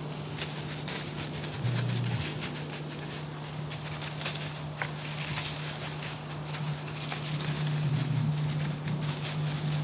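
Light rustling and crackling in dry fallen leaves, scattered faint ticks throughout, over a steady low hum.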